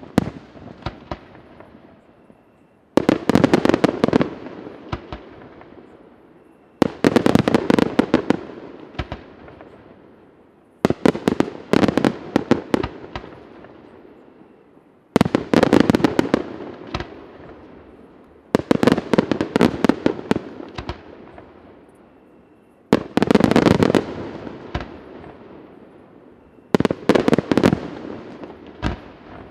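Aerial firework shells bursting in seven volleys, about one every four seconds. Each volley is a rapid cluster of sharp bangs and cracks that echoes and fades before the next.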